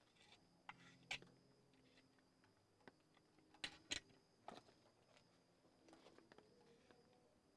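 Quiet scattered clicks and taps, loudest about a second in and as a close pair near the middle, over a faint background.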